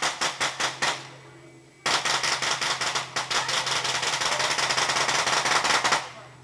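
Twin-barrelled WWII anti-aircraft gun firing in rapid automatic bursts. A short burst ends about a second in; after a brief pause a long continuous burst runs for about four seconds and stops near the end.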